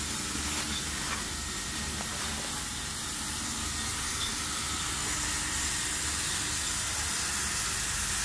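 Rebonded foam peeling machine running: a steady hiss with a low hum underneath, and a few faint ticks early on.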